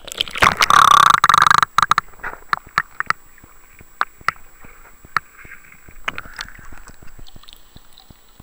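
Camera microphone plunged into a river: water sloshes and gurgles loudly over it for the first two seconds, then a muffled underwater crackle with scattered sharp clicks.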